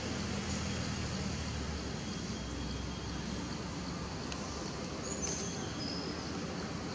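Steady outdoor background noise with a low rumble, and a few faint high chirps about five seconds in.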